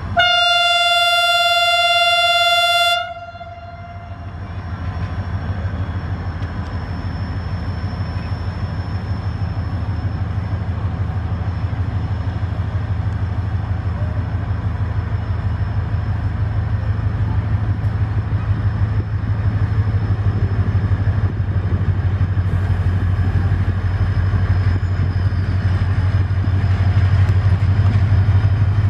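HGMU-30 EMD diesel-electric locomotive sounds one sharp, steady horn blast of about three seconds as it departs. Its engine then works under power pulling the train away, a low throbbing rumble that grows steadily louder as the locomotive approaches.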